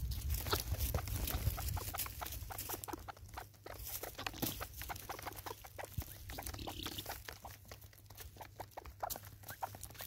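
Helmeted guineafowl pecking seed off wooden stumps: a rapid, irregular patter of beak taps and clicks on the wood and seed. A low rumble sits under the first two seconds.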